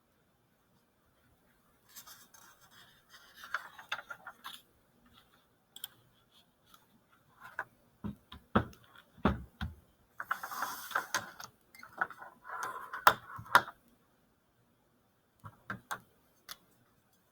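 Irregular clicks and a few knocks mixed with short scraping, rustling noises, as of something being handled.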